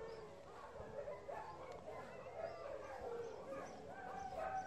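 Dogs whining and howling in drawn-out, wavering cries that slide up and down in pitch, one after another.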